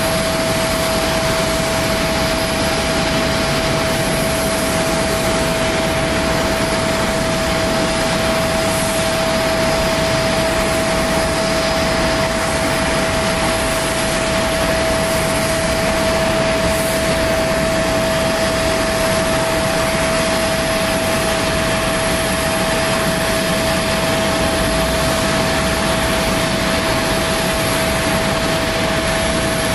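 Jet engines running steadily, a constant whine over an even rush of noise that neither rises nor fades.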